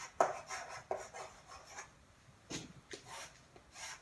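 Chalk writing on a chalkboard: a string of short scratching strokes and taps. Near the end come a couple of longer strokes as the words are underlined.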